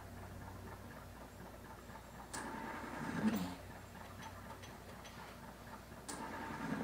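Breathing ventilator cycling for a person with spinal muscular atrophy type 1, about one breath every four seconds. Each cycle opens with a sharp click and a short steady hum, then a low breath of air; two full cycles begin about two and six seconds in.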